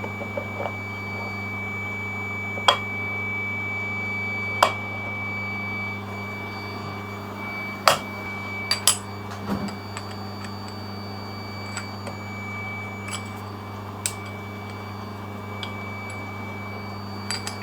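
Steady machine hum with a thin high whine, broken by a few sharp metallic clinks and knocks of steel parts and tools being handled.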